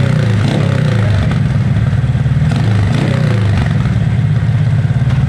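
Motorcycle engine with a 57 mm big-bore cylinder block and an aftermarket ORBR 'chicken pipe' exhaust, running at a steady idle with an even, pulsing exhaust note.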